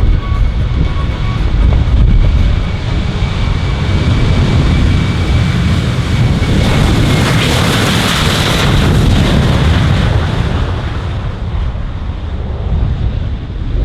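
Military aircraft flying past at an airshow: a loud, steady rumble of engine noise that swells to its loudest about eight seconds in and then fades away, with wind buffeting the microphone.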